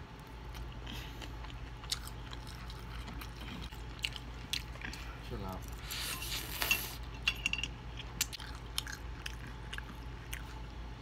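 Close-up eating sounds: chewing and lip-smacking of fried chicken as a run of small wet clicks, then a loud slurp of ramen noodles about six seconds in.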